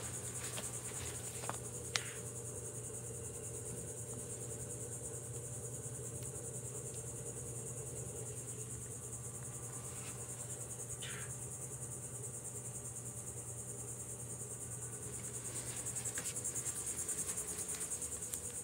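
Steady high-pitched chorus of insects trilling, with a few faint clicks and a low steady hum beneath.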